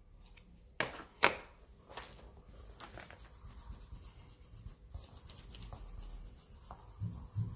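Two sharp plastic clicks about a second in as a Distress Oxide ink pad's lid is handled, then faint quick rubbing and dabbing of a foam ink blending tool working the ink, with a few soft low knocks near the end.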